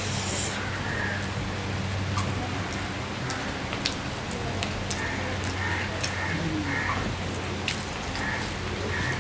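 Steady rain falling, with close chewing and the small wet clicks of rice being mixed and eaten by hand over it. A low steady hum runs underneath.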